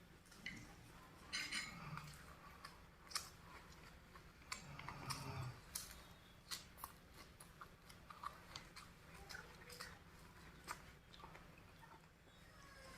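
Close-up chewing and crunching of raw vegetables, a run of irregular crisp crunches and mouth clicks.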